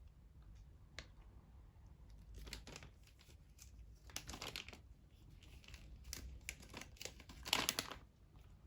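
Crinkling of a plastic gummy-candy packet being handled, in several short bursts, the loudest near the end.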